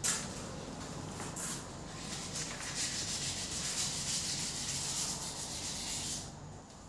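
A stick scraping around inside a small plastic cup of runny plaster mix, working it out into a rubber mould: a fast, rasping scrape that stops about six seconds in.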